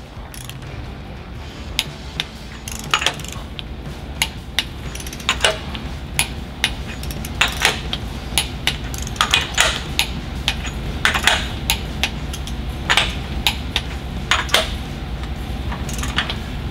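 Click-type torque wrench clicking again and again as it tightens liner hold-down bolts on a Caterpillar 3406B block, each bolt brought to a light 20 ft-lb, not much above hand tight. There are about a dozen sharp metallic clicks and clinks at uneven spacing, several in quick pairs, over a steady low hum.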